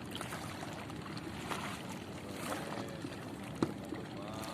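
Steady waterside noise of water and wind around a small boat, with one sharp knock about three and a half seconds in.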